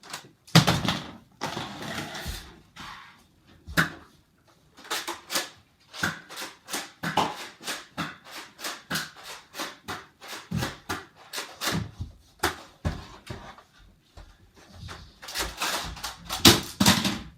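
An irregular run of sharp clicks, taps and knocks, several a second, with louder clusters about a second in and near the end.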